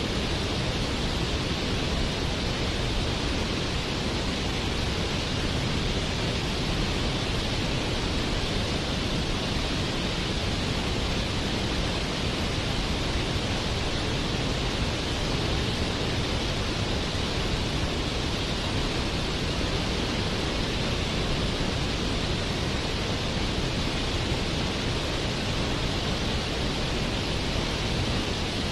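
Waterfall: water falling in a steady, unbroken rush that stays even throughout.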